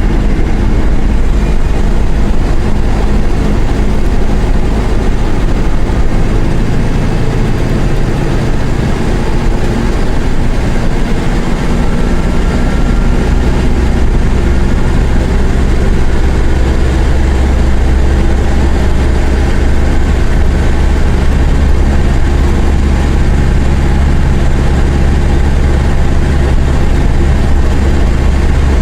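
Mercedes-Benz OF-1418 bus's diesel engine running loudly and steadily, its pitch shifting a little in the first half, then settling into a steady low drone.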